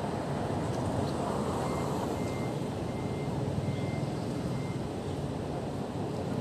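Steady street traffic noise, a low even rumble of passing vehicles. Through the middle come about five short, faint high electronic beeps.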